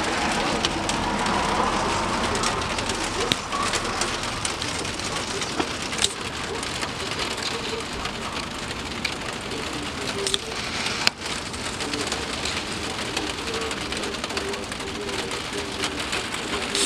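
Steady rain falling on the street and houses, an even hiss with a few sharp taps of drops close by.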